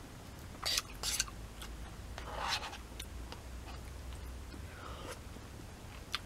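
Eating sounds of someone having udon curry noodle soup close to the microphone: a few short, scattered mouth noises and clicks, one a little longer about two and a half seconds in.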